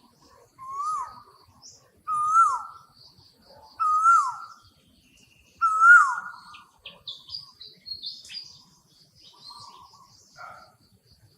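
Forest birds calling: a clear whistled note that rises then drops sharply, repeated about five times, over fainter high chirps and trills.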